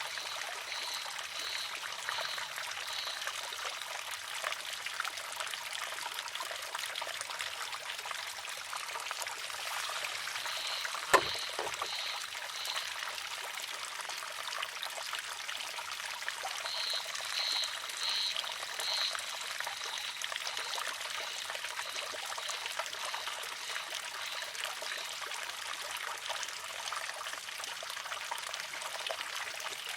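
Water trickling steadily into a wooden shishi-odoshi, with a single sharp wooden clack about a third of the way in as the filled arm tips and strikes its stone. Short runs of high, evenly spaced chirps come and go over the water.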